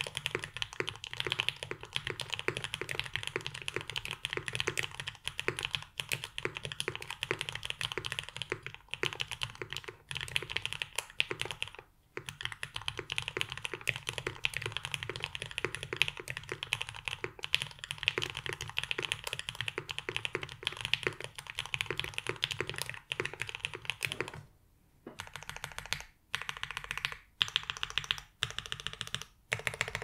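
Mode 80 mechanical keyboard with lubed Everglide Aqua King linear switches on an FR4 plate and GMK keycaps, typed on fast and continuously as a dense stream of key clacks. About 25 seconds in the typing stops briefly, then single modifier keys are pressed one at a time, about one a second.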